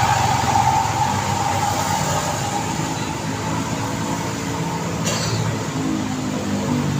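Steady road traffic noise from passing vehicles. A brief sharp click comes about five seconds in, and a vehicle engine grows louder near the end.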